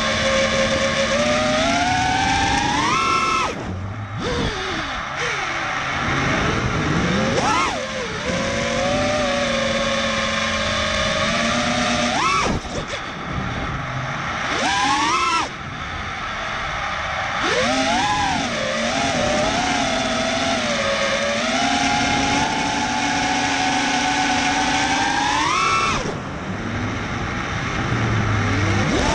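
ImpulseRC Alien 5-inch FPV quadcopter's brushless motors and propellers whining, heard from on board, the pitch sweeping up and down with the throttle. The whine drops away briefly several times and climbs back.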